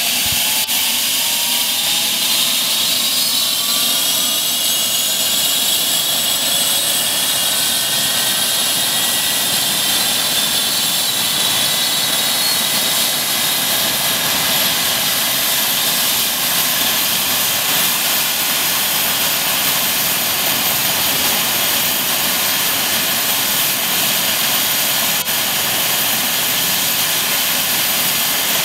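Eurocopter EC135 air ambulance helicopter running up on the ground, with its twin turbine engines and turning rotor. The turbine whine rises in pitch over roughly the first fifteen seconds, then holds steady at a high pitch over the continuous rotor and engine noise.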